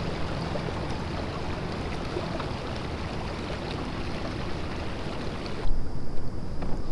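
Steady rush of water along the hull of a moving kayak on calm water. From about six seconds in, gusts of wind buffet the microphone.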